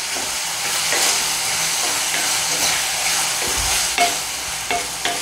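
A wooden spatula stirring and scraping boiled potato cubes through onion-tomato masala in an aluminium kadai, over a steady sizzle of frying.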